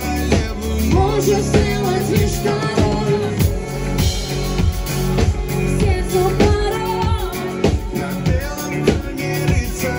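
Live pop band playing with a steady drum beat and electric guitar, a vocal line sung over it.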